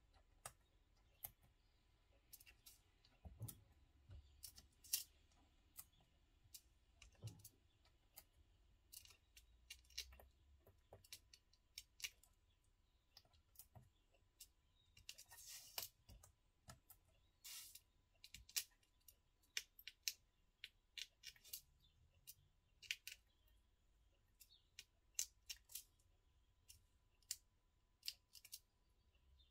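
Faint, irregular clicks and ticks of metal tweezers picking small adhesive foam blocks off their sheet and pressing them onto card, with two brief scratchy rustles about halfway through.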